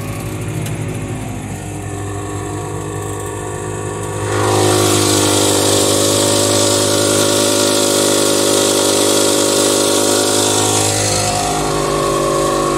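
Tractor engine running steadily, heard from inside the cab while pulling a slurry tanker. About four seconds in the revs rise, the sound gets louder and a strong rushing hiss joins; the revs drop back near the end.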